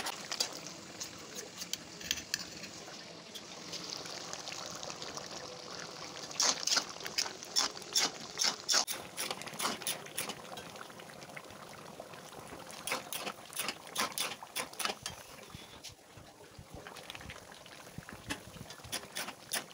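Mutton curry bubbling in a kadai, with a spoon stirring it and clinking against the pan in bursts of sharp clicks about six seconds in, again around thirteen seconds, and near the end.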